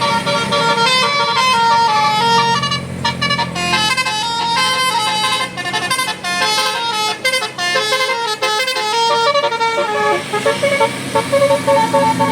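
Bus 'telolet basuri' musical horn playing a fast tune of short, stepped notes.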